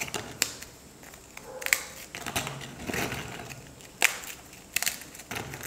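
Oreo biscuit wafers, their cream scraped out, snapped into pieces by hand over a glass bowl: about seven crisp snaps at irregular intervals.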